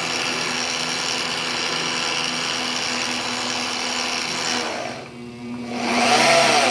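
VEVOR 8850E magnetic drill press motor running steadily at low speed, driving a 3/8-16 tap into a steel plate. About five seconds in, the sound drops away for under a second, then picks up again.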